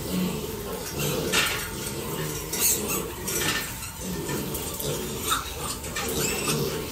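A crowded group of piglets grunting continuously, with short squeals and clicking clatter mixed in, the sharpest about one and a half and nearly three seconds in.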